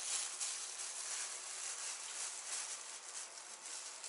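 Food sizzling in a frying pan on the stove, a steady crackling hiss.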